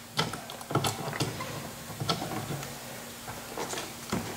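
Scattered light clicks and knocks as hands work a new side mirror and its mounting nut into place inside a car door.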